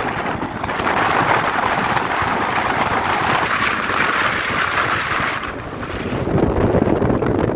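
Wind buffeting the microphone, a loud, steady rushing rumble that grows brighter about half a second in and duller again near the end.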